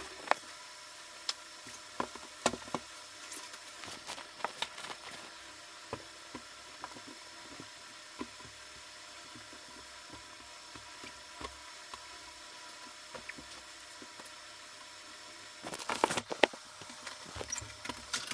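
Blankets and bundled cloth being lifted and moved off a storage trunk: scattered light knocks and handling noises over a steady faint hum. Near the end a louder burst of bangs and clatter as the trunk is opened.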